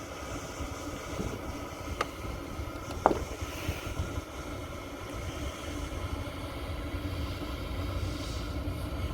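Daikin rooftop package unit running with its gas burner lit and draft inducer motor going: a steady low rumble, with the supply blower not yet started. Two light clicks come about two and three seconds in.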